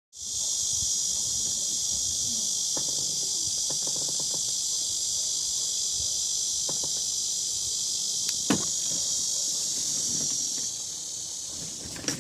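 A loud, steady, high-pitched insect chorus shrilling without a break, with a few faint knocks, the sharpest about two-thirds of the way through.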